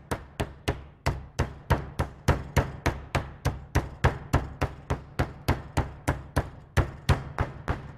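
Metal meat mallet pounding raw chicken breasts through a plastic zip-top bag on a cutting board, a steady run of thuds about three a second, flattening the breasts to an even thickness.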